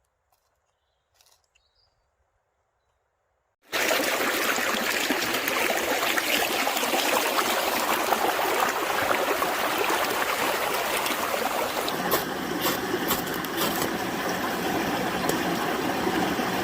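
Near silence for the first few seconds, then a sudden start of loud, dense sizzling of steak cooking over a campfire, which runs on steadily with a few sharp crackles near the end.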